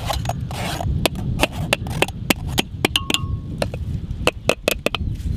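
Metal sieves and spoons tapping and clinking against the rims of metal basins in quick, uneven strikes, a few a second, some with a short ring, as dragon fruit pulp is strained, over a low rumble.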